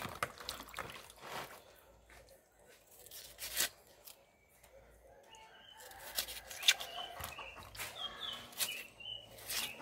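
Kitchen knife paring a yellow yam by hand over a basin of water: scattered scrapes and clicks of the blade. From about halfway a bird joins in with short, high, repeated chirps.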